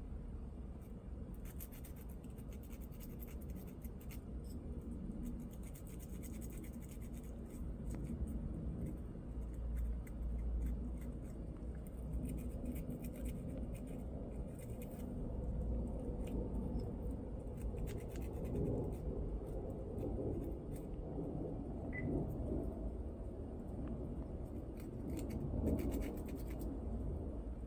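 Sandpaper scratching and rubbing in short bouts against the small metal contacts of a car's power window switch, scouring off burn marks and carbon deposits.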